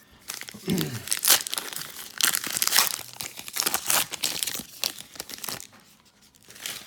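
A trading-card pack's foil wrapper being torn open and crinkled by hand, a burst of irregular crackling that dies down after about five seconds.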